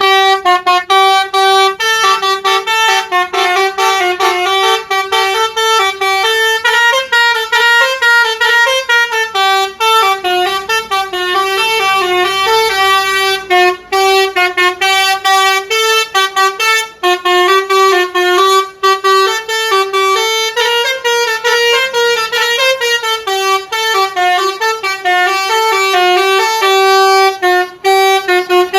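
Bus basuri 'telolet' musical horn playing a tune: loud, buzzy horn notes stepping quickly up and down in pitch, with short breaks between phrases.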